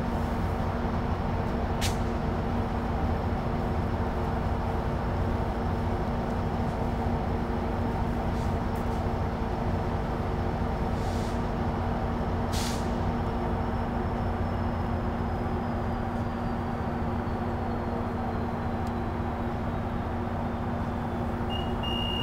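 A standing diesel commuter train idling at a station: a steady low rumble with a constant hum. Two sharp clicks and a brief hiss of air come during it, and a high beeping starts near the end.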